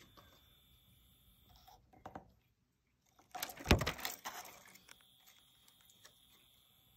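Electric cat toy on a stake giving a faint steady high whine, broken about three seconds in by a short burst of clattering knocks and rattles.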